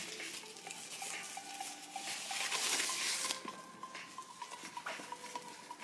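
Paper and plastic wrapping rustling and crinkling as it is pulled out of a new tote bag, louder for about a second a little before halfway, with a few light metallic clinks from the bag's hardware.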